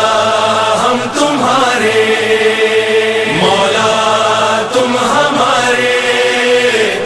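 A voice chanting an Urdu noha, a Muharram lament, in long held notes. Several phrases each begin with an upward glide in pitch.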